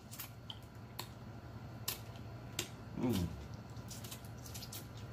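Wet mouth clicks and lip smacks of someone eating crab claw meat, a few sharp clicks spread out, with a short "mm" about three seconds in.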